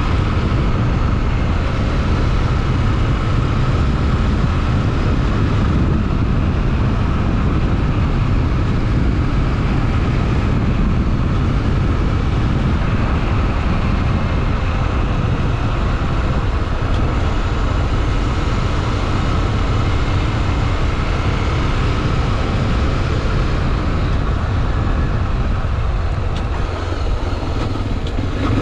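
Honda XRE 300 Rally motorcycle riding at a steady speed: its single-cylinder engine running under a constant rush of wind and road noise. The noise eases slightly near the end.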